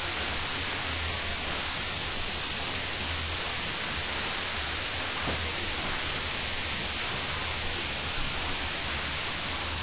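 Steady hiss of recording noise, like static, with a low hum wavering underneath. One faint click about five seconds in.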